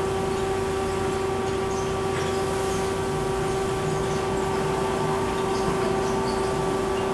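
Amada HFA-400W automatic horizontal band saw running, its motors and blade drive giving a steady hum with a steady whine over it.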